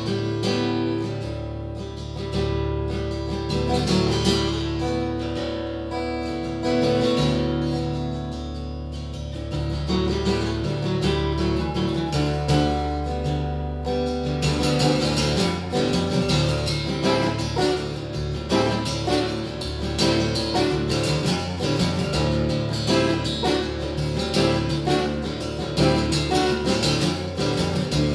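Acoustic guitar played solo, holding ringing chords over a steady low bass note. About halfway through the playing turns busier, with quick, dense strumming.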